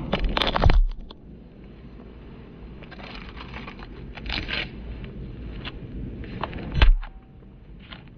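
Handling noise from a phone's microphone as fingers rub over it and the phone is set down on the pavement, loudest in the first second. Then scattered light taps and scuffs, and one loud thump about seven seconds in.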